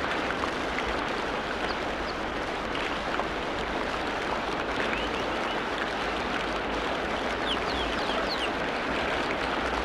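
Steady rushing noise of running water, with brief high bird chirps several times, most clustered near the end.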